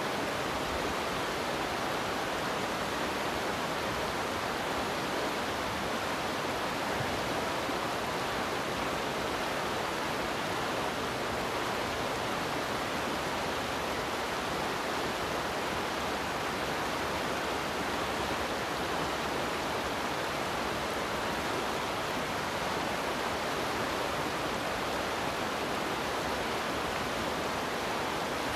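A fast, shallow river rushing over rocks, a steady, unbroken rush of water.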